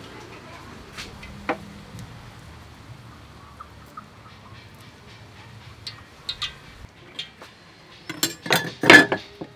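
Garlic cloves being peeled by hand over a wooden chopping board: light scattered clicks and crackles, then a louder cluster of sharp knocks and clatter near the end.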